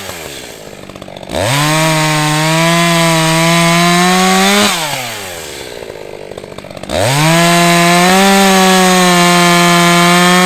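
ECHO CS-620P two-stroke chainsaw cutting through wood at full throttle. It is let back to a low idle twice, each time dropping in pitch and then rising sharply back to a high, steady note as the next cut starts.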